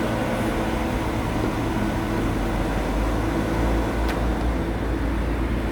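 Engine of a firewood-splitting machine running steadily: a constant low hum with a steady tone, and a faint click about four seconds in.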